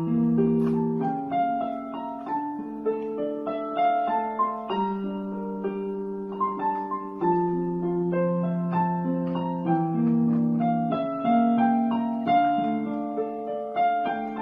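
Electronic keyboard played with both hands in a piano voice: a slow melody of held notes over sustained lower notes.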